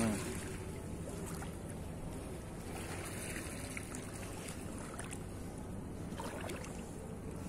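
Shallow seawater lapping and sloshing against a rocky shore, a steady wash with a few soft splashes.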